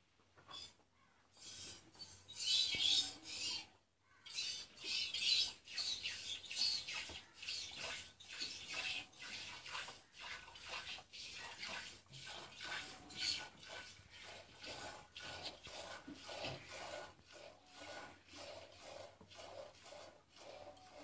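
Cow being milked by hand: streams of milk squirting into a metal pot, about two a second in a steady rhythm, with a brief pause about four seconds in.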